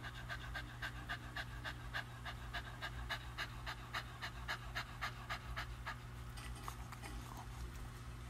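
An elderly cocker spaniel panting fast, about four short breaths a second, growing fainter after about six seconds. The dog is tremoring and unable to relax after a medication overdose.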